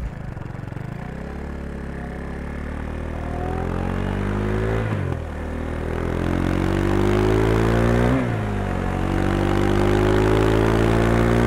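Motorcycle engine running briefly at a steady pitch, then accelerating hard through the gears: the pitch climbs, drops sharply at an upshift about halfway through and again about two-thirds of the way in, then climbs once more to a third shift at the very end.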